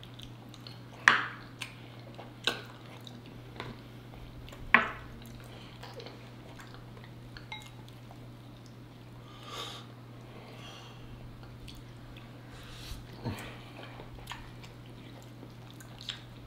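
Close-up eating sounds: wet lip smacks and chewing, with a few sharp clicks, the loudest about a second in and near five seconds. A steady low hum runs underneath.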